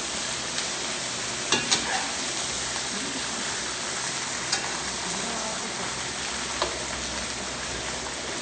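Food sizzling in a hot pan as it is stir-fried, with a steady frying hiss and a few sharp clacks of the spatula against the pan.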